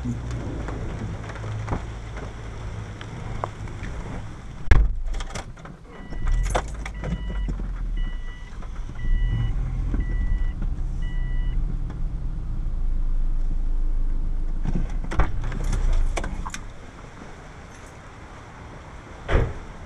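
A car door thuds shut, then the car's engine runs for about ten seconds while a dashboard warning chime beeps six times, evenly spaced. The engine stops, followed by clicks and the jangle of keys, and a door thuds near the end.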